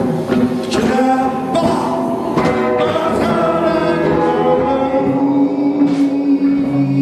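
A man singing into a microphone over musical accompaniment, holding one long note through the second half.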